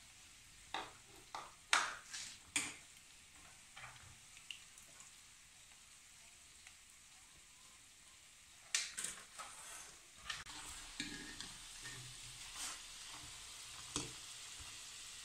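Peanuts frying in hot oil in a square pan, a faint steady sizzle that grows louder about nine seconds in. A wire skimmer stirs through the oil and knocks against the pan several times, in short clicks early on and a cluster later.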